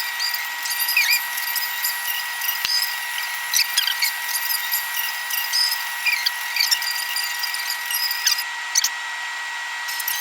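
A steady high-pitched electronic whine at two pitches over hiss, with scattered short squeaks and clicks throughout, as a hair waver is handled and clamped through hair. One sharper click comes a little under three seconds in.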